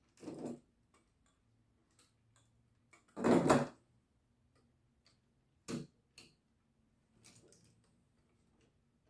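Lego Clone Turbo Tank model being handled on a table: plastic knocking and clattering, loudest about three seconds in as the model is turned around, then a sharp plastic click near the six-second mark and softer rustling after.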